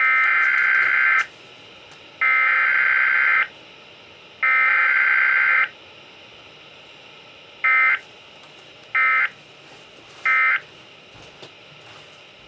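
Weather radio sounding SAME digital alert data tones, the buzzy warbling data bursts that encode a severe thunderstorm warning. There are three long bursts about a second apart, then three short bursts.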